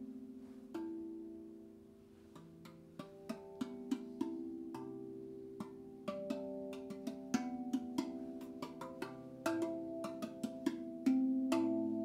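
RAV Vast steel tongue drum in the A Integral (A minor) scale played with the fingers: soft strikes, each note ringing on and overlapping the next. After a single note early on, the strikes come more often, a loose stream of notes through the rest.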